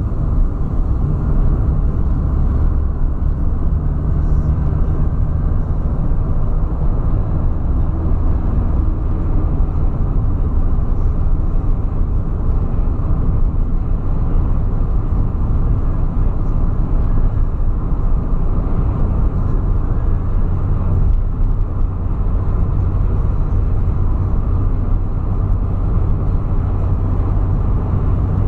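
Steady road and engine noise inside a car cabin driving at highway speed: a continuous low drone of engine and tyres.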